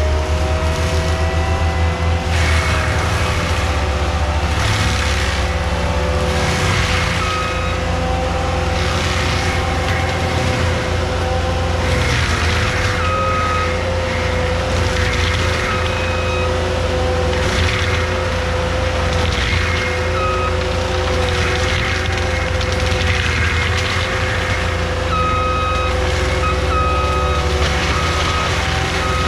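A skid steer's diesel engine runs under load with a forestry mulcher, holding a steady whine. Surges of grinding noise come every two to three seconds as the mulcher works into the brush.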